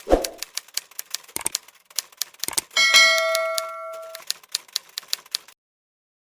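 Rapid, irregular clacking key strikes with a single bell ding about three seconds in that rings for about a second, like a typewriter. The clacking stops abruptly about five and a half seconds in.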